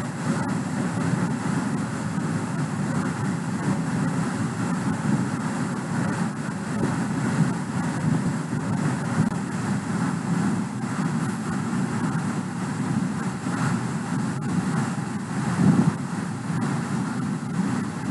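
Steady, deep rushing background noise with a few faint clicks.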